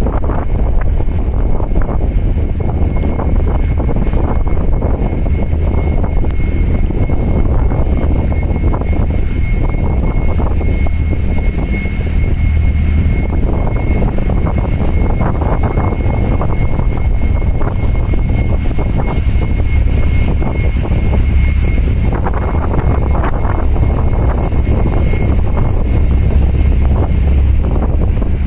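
Low steady rumble of the container ship MOL Paradise under way close by, with wind buffeting the microphone and water washing against the breakwater. A thin steady high whine sits over it.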